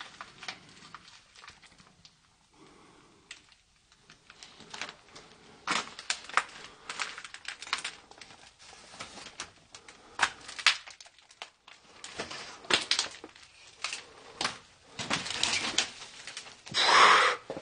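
Footsteps crunching and scuffing over a debris-strewn tiled floor: irregular small crackles and clicks of grit and plaster underfoot, with one louder scrape near the end.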